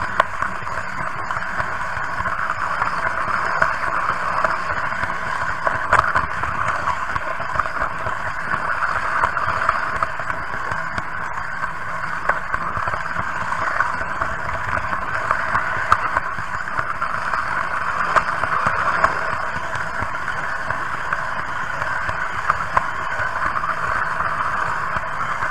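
Märklin H0 model train running along the track, heard from the car carrying the camera: a steady whirring with frequent small clicks.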